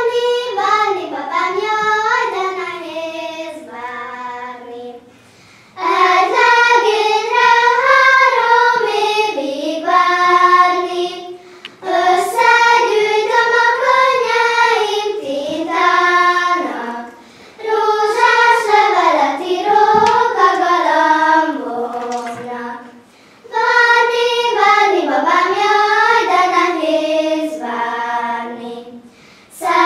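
A class of children singing a song together in unison, with no instruments. The song comes in phrases of about five seconds with short breaks between them.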